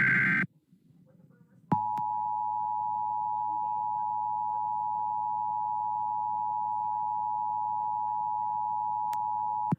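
The tail of an Emergency Alert System SAME header data burst, then after a short pause the EAS two-tone attention signal (853 and 960 Hz together), a steady tone held for about eight seconds that cuts off sharply. It marks the start of an alert, here a required monthly test.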